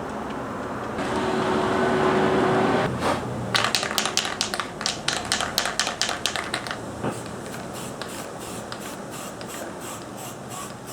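An aerosol spray can hissing for about two seconds, then being shaken, its mixing ball rattling in quick clicks for about three seconds.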